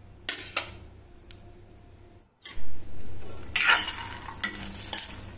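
A steel spoon stirring raw peanuts dry-roasting in a kadai: the spoon scrapes the pan and the peanuts rattle against the metal in repeated strokes. The strokes are sparse at first and become louder and denser after a brief break about halfway through.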